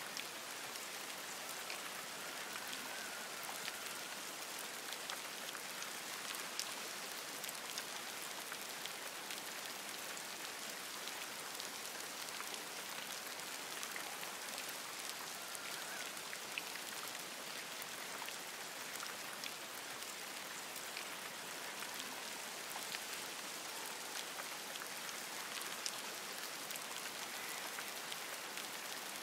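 Steady rain falling on forest leaves, an even patter with a few louder individual drops ticking close by.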